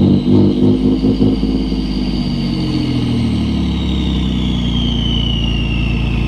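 Ford 3.5L EcoBoost twin-turbo V6 blipped in quick revs for about the first second and a half, then running steadily, with a loud, high turbo whistle over the engine that slowly falls in pitch as the turbos spool down.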